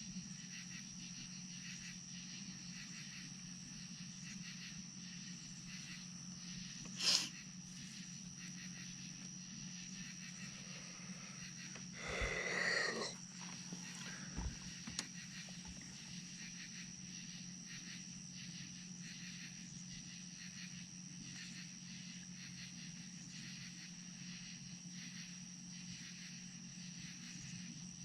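Steady high-pitched chorus of night insects over a low steady hum, with a sharp click about seven seconds in and a brief louder noise about twelve seconds in.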